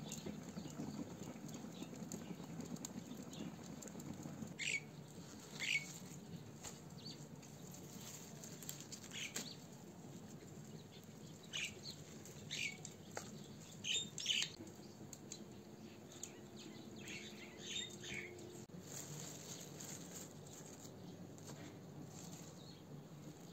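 Scattered short bird chirps at irregular intervals, with faint soft taps of a small knife cutting fresh herbs on a wooden board. A faint low rumble runs under the first few seconds.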